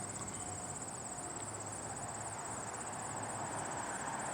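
Crickets chirping steadily in a high, fast-pulsing trill.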